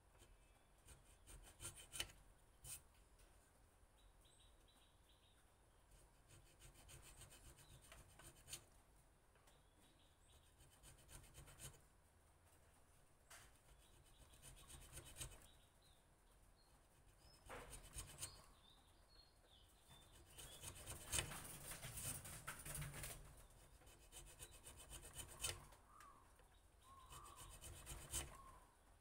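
Faint scraping from a small hand chisel cutting anti-slip grip grooves into a wooden knife handle. It comes as short, irregular strokes with light clicks and is busiest about three quarters of the way through.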